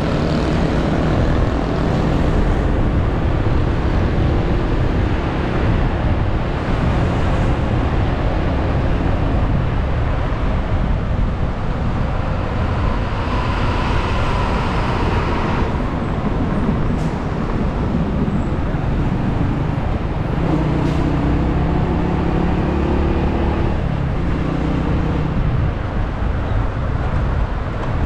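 Riding on a motorcycle taxi through city traffic: the motorcycle's engine running under a steady low road rumble, with the engines of surrounding vehicles rising and falling in pitch.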